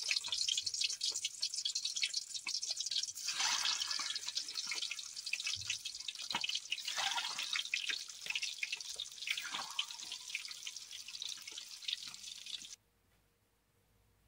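Whole boiled eggs sizzling and crackling in hot oil in a pan, with three louder flare-ups of spitting as more eggs are dropped in. The sound cuts off suddenly near the end.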